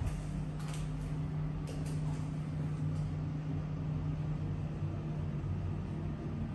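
Steady ventilation hum, a low even drone that does not change, with a few faint taps in the first two seconds.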